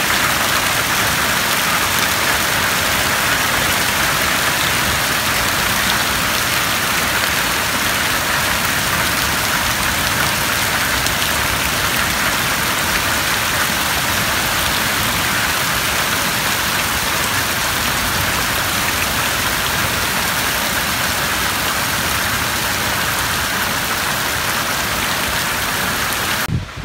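Heavy rain pouring steadily onto maize plants and hail-covered ground, a dense, even hiss that cuts off abruptly near the end.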